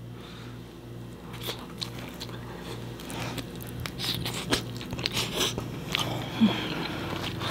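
A person takes a bite of a slice of homemade pizza covered in ranch and chews it, the crisp crust crunching in scattered, irregular bites.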